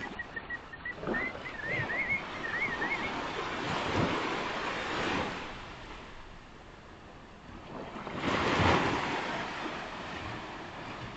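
Ocean surf washing onto a beach, swelling with a breaking wave about four seconds in and a louder one about eight seconds in, with wind buffeting the microphone.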